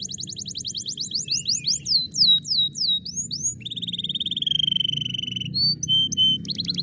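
Canary singing: a fast, even trill of repeated notes, then a few slower sweeping notes about two seconds in, a held note around the middle with short notes after it, and another fast trill beginning near the end. A low steady hum sits underneath.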